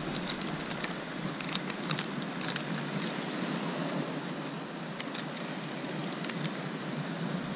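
Steady wash of surf, with a thin plastic bag crinkling now and then as a cuttlefish is pulled out of it.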